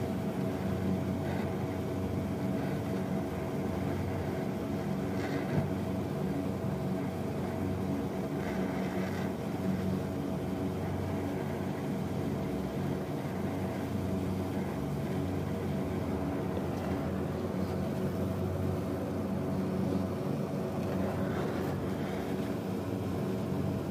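Brazing torch flame hissing steadily while a copper refrigerant tube is heated and silver-brazed to seal a leak, over a steady low hum.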